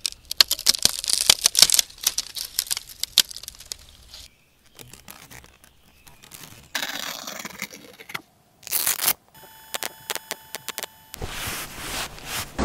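Sound-design montage of surface textures: a dense run of sharp crackles and tearing snaps for the first few seconds, then a pause and scattered scraping and rubbing noises. A brief stuttering electronic tone pattern comes about two-thirds of the way in, followed by more scraping noise.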